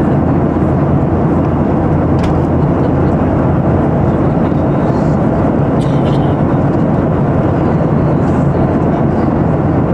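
Steady in-flight cabin noise of a Boeing 737-800 heard from a window seat over the wing: the even, low drone of its CFM56-7B engines mixed with the rush of airflow past the fuselage.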